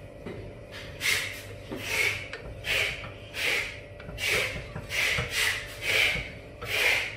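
A spoon scraping around the inside of a Saladmaster stainless steel pot as chunks of beef, potatoes and boiled eggs in sauce are stirred. The strokes are short and regular, about one every three-quarters of a second.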